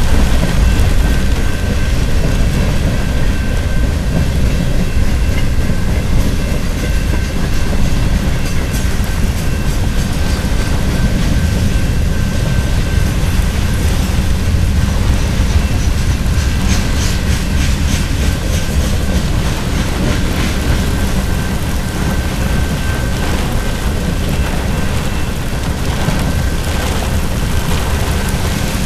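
Manifest freight train's cars (covered hoppers, boxcars, tank cars) rolling past a grade crossing, heard from inside a car: a steady low rumble of wheels on rail with clickety-clack over the rail joints.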